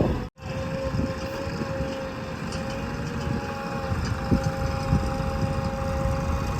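Diesel engine of a JCB 3DX backhoe loader running steadily, with a constant whine held over the low rumble and a couple of short knocks in the second half. The sound cuts out for an instant just after the start.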